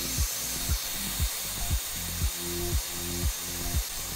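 Hairdryer blowing, a steady airy hiss, heating a phone's back glass. Background music with a steady beat of about two per second plays under it.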